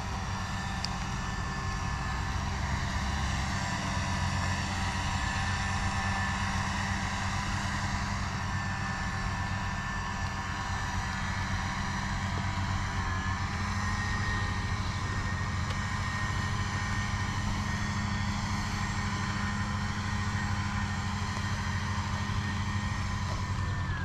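A steady mechanical hum from a motor or engine running continuously, with several held whining tones above the low drone.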